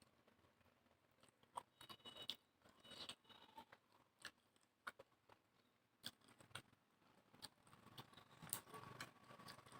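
Faint, irregular chewing and wet mouth clicks of a person eating, with short sharp clicks coming more often towards the end.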